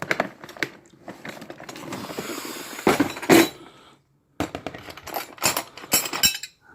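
Metal sockets clinking and rattling together as someone rummages through a socket set looking for the right size, in a quick run of short sharp clinks.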